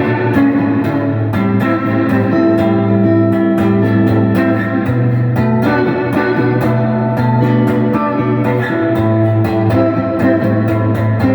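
Donner DST200 electric guitar with its stock pickups, played through a Sonicake Blues Screamer overdrive pedal in its dumble mode: picked notes and ringing chords, with the extra bass that this mode adds.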